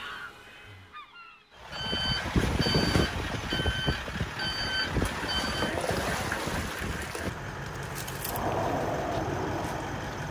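Electronic beeping: five short beeps at one steady pitch, about one and a half a second, over a loud rushing noise that starts suddenly about a second and a half in.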